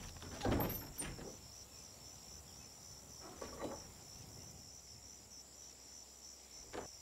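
Insects chirring steadily in an even, pulsing rhythm, with a few soft knocks and thumps of people moving through a doorway, the loudest about half a second in.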